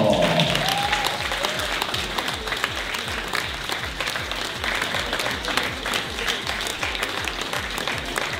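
Audience applauding, over background music with a steady low beat.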